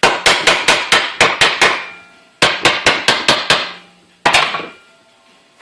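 Hammer striking metal vise parts in quick runs of about five blows a second, each with a short metallic ring: a run of about nine, a pause, about six more, then a final double blow. The hammering taps the vise jaws into place.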